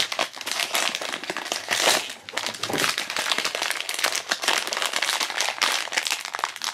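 Silver foil blind-box bag crinkling and crackling as hands crumple and squeeze it, with irregular crackles throughout.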